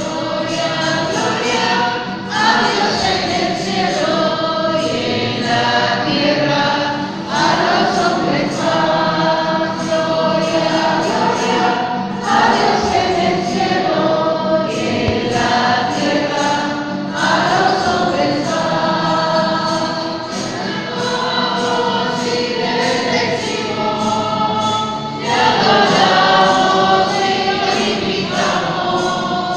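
Music: a choir singing a Christian hymn in continuous sung phrases.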